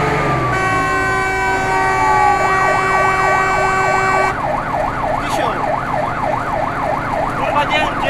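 Fire engine siren on an emergency run. A slowly falling tone is joined by a long, steady horn blast lasting about four seconds, and then the siren changes to a fast warble at about two and a half cycles a second.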